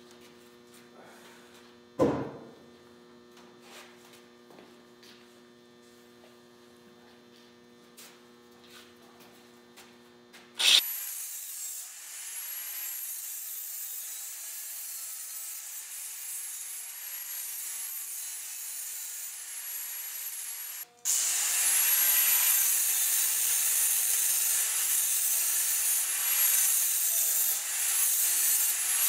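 A single sharp knock, then a steady low hum, until a handheld grinder starts about ten seconds in and grinds into a metal shower-rod tube with a high, hissing whine while cutting notches. It stops for an instant about two-thirds of the way through and comes back louder.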